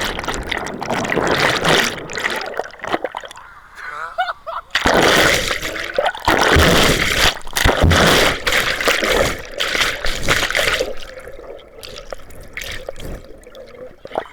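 Water pouring and splashing in irregular bursts, with gurgling, as when a drink is poured into an open mouth from above.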